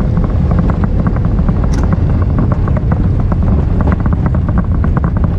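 Vehicle driving fast over rough ground: a loud, steady engine-and-road noise with a constant rapid rattle of clicks from the body jolting.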